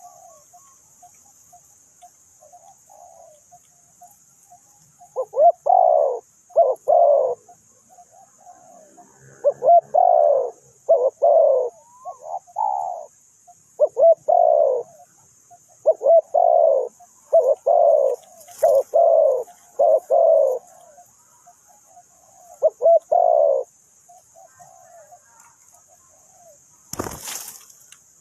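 Spotted doves cooing: a close bird gives loud coos in a run of short phrases, with fainter coos from farther off before and after. A steady high-pitched buzz runs underneath, and one sharp knock comes near the end.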